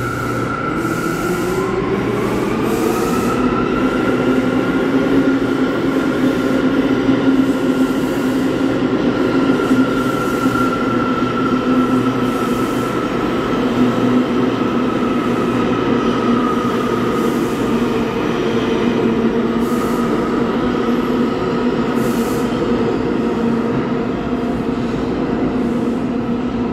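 New York City subway train running through the station: a motor whine that rises in pitch over the first few seconds and then holds nearly steady, over a loud rumble of wheels on rail.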